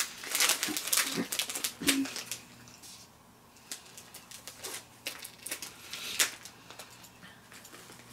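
Plastic snack wrapper crinkling as it is handled, then a few scattered sharp clicks and snips as it is cut open with scissors.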